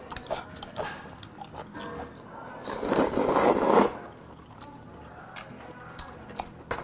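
A person slurping black-bean-sauce noodles (jjajangmyeon) from a bowl held at the mouth: one noisy slurp about a second long, starting near three seconds in, the loudest sound here. Light scattered clicks of chopsticks against the bowl come before and after it.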